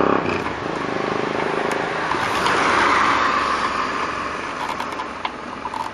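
A car passing by: a steady rush of road noise that swells to its loudest about halfway through, then fades away.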